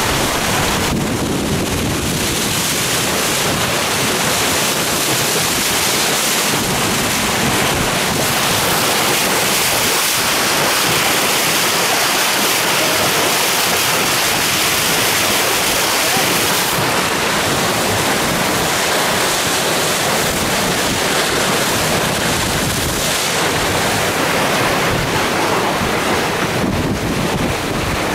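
Strong wind buffeting the microphone over water rushing and spraying along the hull of a J80 sailboat sailing fast: a loud, steady rush of noise.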